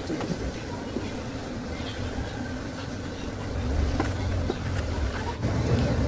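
A low rumble that grows louder about halfway through, with a few faint knocks from the wooden hive box and its top bars being handled.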